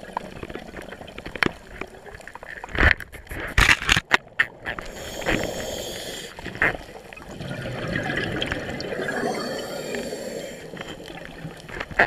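Scuba diver breathing through a regulator underwater: a hissing inhale around 5–6 s and again around 9–10 s, with rough bubbling exhalations between. A cluster of sharp knocks and clicks about 3 to 5 seconds in.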